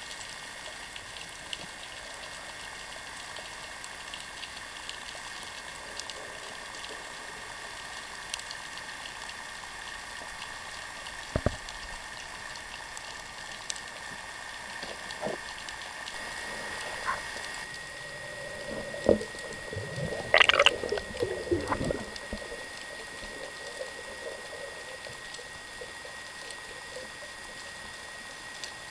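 Underwater ambience heard through a camera housing on a speargun during a breath-hold dive: a steady hiss with a thin steady high tone and scattered faint clicks. About two-thirds of the way in, a short cluster of louder knocks and gurgling sounds.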